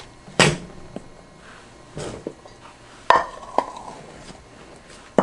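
Red plastic measuring cup knocking against a glass bowl while flour is scooped and tipped. There is a sharp knock about half a second in, a softer one at about two seconds, and a clink about three seconds in that leaves the glass ringing briefly.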